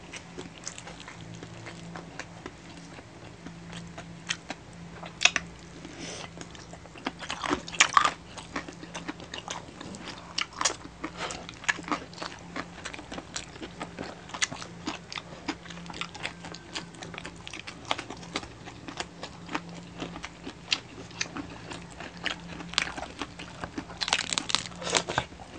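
Crispy deep-fried pork knuckle (crispy pata) skin crunching as it is bitten, chewed and broken apart by hand. It comes as sharp crackly crunches in irregular clusters, loudest about five, eight and twenty-four seconds in.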